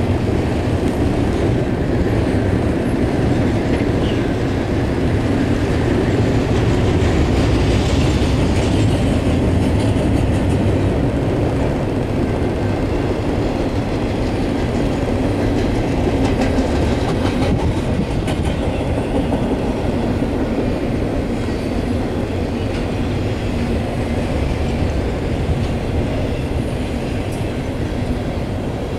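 A BNSF double-stack container train rolling past: the cars' wheels make a steady rumble and rattle on the rails, easing slightly near the end.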